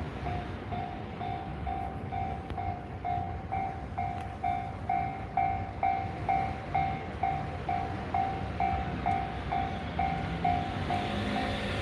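Japanese level-crossing warning bell ringing at about two strokes a second, swelling louder in the middle and easing off near the end, while a train runs past with a low rumble.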